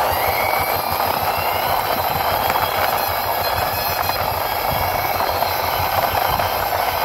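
A plastic toy cement mixer truck pushed by hand along rough concrete: its plastic wheels and gears give a steady, fast rattle.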